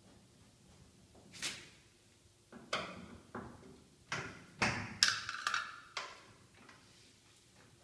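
Handling noise from a top-loading washing machine's opened cabinet: a series of knocks, clicks and scrapes, busiest and loudest about four to six seconds in, with a short scraping squeak about five seconds in.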